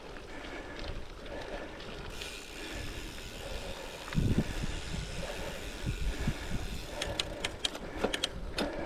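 Goodyear Connector gravel bike tyres rolling and crunching over a gravel track, with wind on the microphone and a heavier bump about four seconds in. Near the end comes a quick run of sharp ticks.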